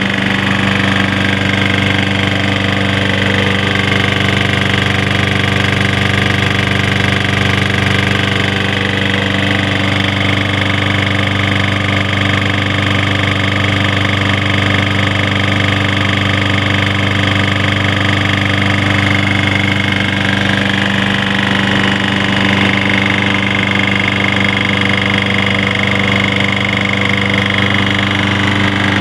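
Snapper push mower's Briggs & Stratton 6.75 single-cylinder engine running steadily with a knocking noise, which the owner blames on the engine having been run low on oil and burning its cylinder walls.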